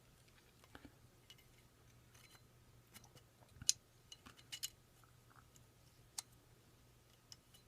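Scattered faint metallic clicks of a Glock pistol's reassembled striker assembly being handled and slid back into the slide, with a sharper click about three and a half seconds in and another about six seconds in.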